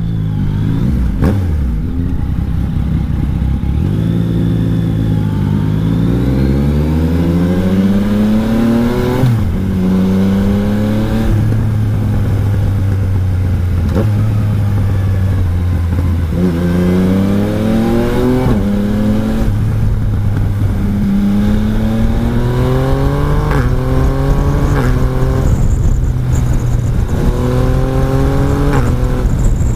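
Yamaha Tracer 900 GT's 847 cc three-cylinder engine accelerating hard through the gears, its pitch rising in each gear and dropping sharply at each upshift, over and over.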